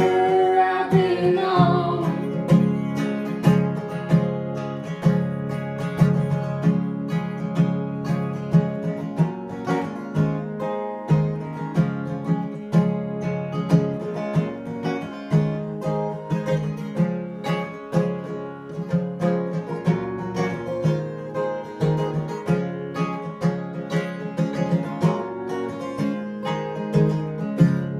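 Acoustic guitar strummed in a steady rhythm through an instrumental break in a song, with no voice over it after the last sung note dies away in the first moment.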